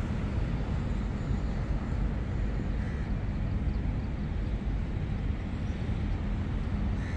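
Steady low rumble of outdoor street ambience with road traffic.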